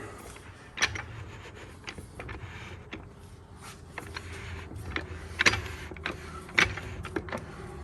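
Scattered light metallic clicks and knocks as TH400 transmission parts are handled and turned on the bench. A faint steady hum comes in about halfway through.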